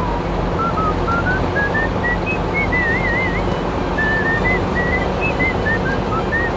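Background music led by a whistled melody of short, hopping notes with a warbling trill about three seconds in, over a dense, steady backing.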